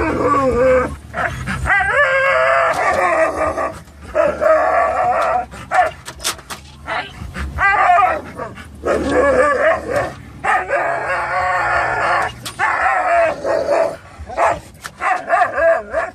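Excited dogs, a Norwegian Elkhound mix and a Labrador mix, howling and whining in several long wavering howls with short yips between. They are heard inside a moving car, with the engine rumbling low underneath until near the end.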